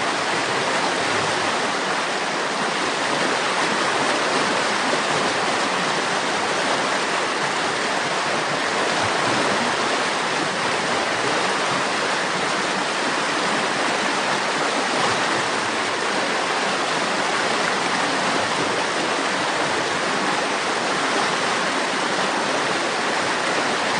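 River water flowing and rushing steadily over rocks, an even unbroken rush of water.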